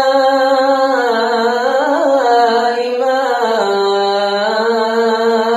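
A man's voice reciting the Quran in melodic tajwid style, drawing out the word 'as-samā'' in long held notes that step down in pitch about halfway through.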